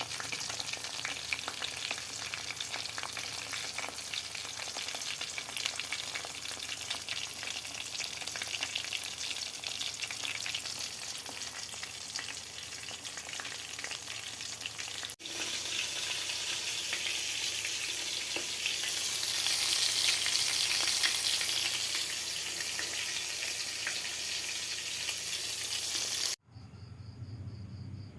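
Squid rings frying in hot oil, a dense sizzle with constant fine crackling and popping of spattering oil. It breaks off briefly about halfway through and comes back louder.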